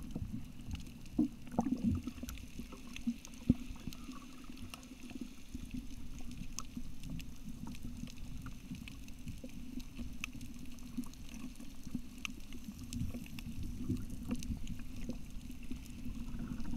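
Muffled underwater sound heard through a camcorder's waterproof case: a steady low rumble with scattered sharp clicks and crackles, a few louder knocks in the first few seconds.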